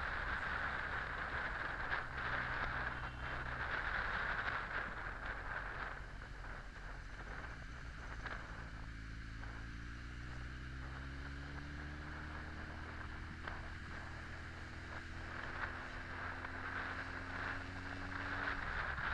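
Honda X4 motorcycle's inline-four engine running, heard with wind rush on the microphone for the first few seconds. The wind then falls away as the bike slows in traffic, and the engine note rises slowly and steadily through the second half as it gathers speed again.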